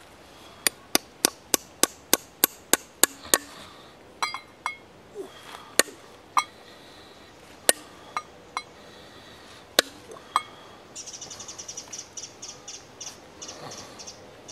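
A hammer striking nails into a wooden stump: about ten quick, sharp blows, roughly three a second. Scattered lighter metallic clinks and taps follow as a small stainless steel cup is set onto the nail heads. Near the end comes rapid, high chirping, likely a bird.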